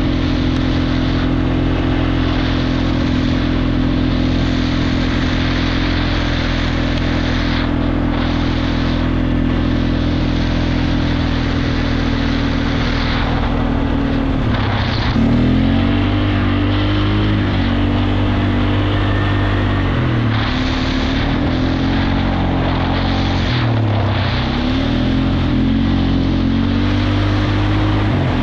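Four-wheeler engine running at a steady cruising speed, with wind rushing over the microphone. From about halfway through, the engine note drops and climbs again several times as the throttle is eased off and opened back up.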